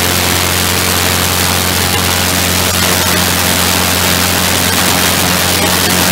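Engine of a small ground-effect craft running steadily at a constant pitch, under a heavy rush of wind and water noise.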